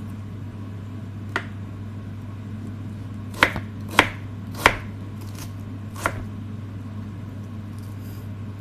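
Kitchen knife knocking on a wooden cutting board while cutting an onion: five sharp chops, three of them close together in the middle. A steady low hum runs underneath.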